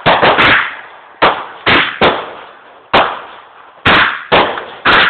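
Fireworks going off in a rapid string of loud bangs, about nine in five seconds at uneven spacing, each with a short echoing tail.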